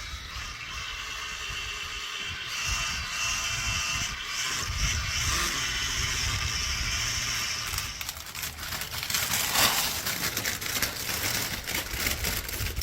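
Electric polisher whirring steadily as it buffs clear-coated bumper paint. From about eight seconds in, the steady whir gives way to irregular clicking and scraping.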